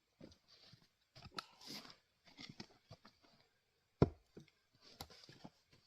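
Scattered light crunches and rustles of firewood being handled, with one sharp wooden knock about four seconds in.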